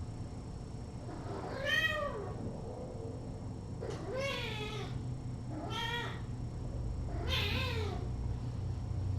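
A cat meowing four times, each meow rising and then falling in pitch, spaced about a second and a half apart. A steady low hum runs underneath.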